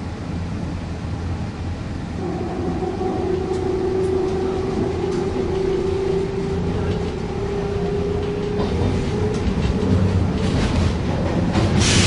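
Circumvesuviana electric narrow-gauge commuter train running, heard from inside a carriage: a steady low rumble of wheels on rail. A steady tone sets in about two seconds in and fades after about nine seconds. A louder hiss comes near the end.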